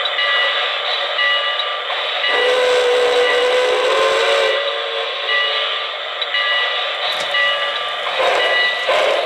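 O-gauge model New York Central J1 Hudson steam locomotive with Lionel RailSounds running along the track, its electronic sound system playing a repeating steam-engine running sound. About two seconds in it blows its deep whistle, held for about two seconds with a slight waver in pitch.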